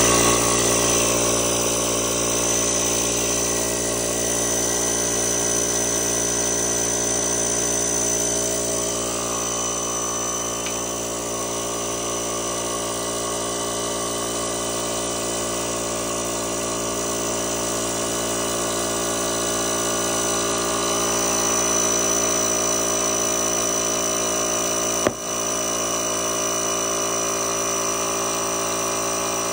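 Kobalt portable air inflator's pump motor running steadily while it inflates a Onewheel tire on its hub to seat the bead. About 25 seconds in there is one sharp pop as the tire bead snaps onto the rim.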